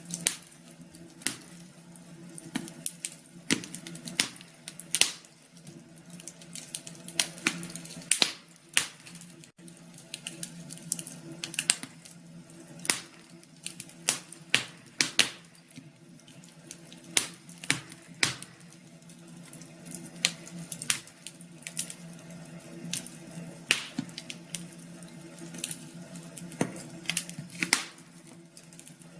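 Wood fire crackling, with irregular sharp pops and snaps over a steady low hum.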